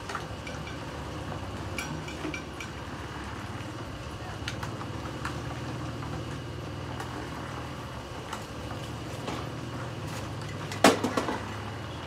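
Building-site work: a steady low machine hum under scattered light clinks of tools, then a sharp metallic clank followed by a few quicker clanks near the end.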